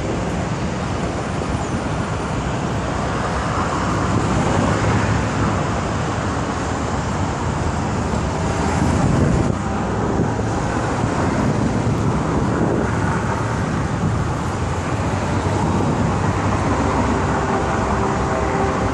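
Steady road traffic noise from vehicles crossing the bridge, a continuous wash of sound with no clear single event.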